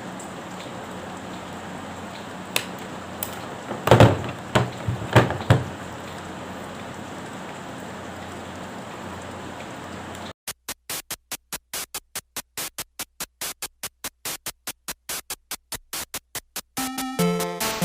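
A few clicks and a cluster of loud knocks over a steady hiss, from hands working the cable and crimping tool. About two-thirds through, this cuts abruptly to electronic background music: a fast, even pulsing beat, with a melody coming in near the end.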